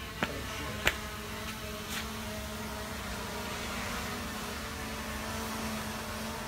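Steady drone of a small propeller aircraft's engine flying overhead, with a few short clicks in the first two seconds, the sharpest about a second in.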